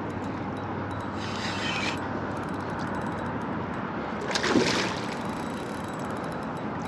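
Steady wind noise on the microphone mixed with water lapping and sloshing against a kayak, with a brief louder noise about four and a half seconds in.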